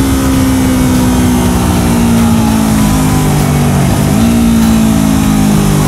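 Yamaha MT-03's parallel-twin engine heard from the riding bike with wind rush, its revs slowly falling as it rolls off the throttle. About four seconds in the revs dip briefly and then jump higher, as on a downshift, before falling again.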